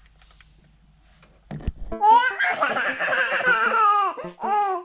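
Quiet room tone, then about two seconds in a loud burst of high-pitched laughter: a string of laughs, each falling in pitch.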